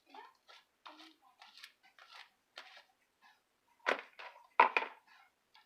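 Fluffy slime being mixed in a bowl: a run of short sticky squelching strokes about twice a second, with two much louder ones about four seconds in.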